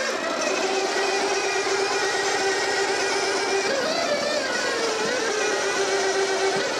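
Electric roller starter spinning the 1937 Scott 600's two-stroke twin engine over: a steady mechanical whirr and drone that rises a little in pitch about four seconds in. Only one of the engine's two plugs is firing.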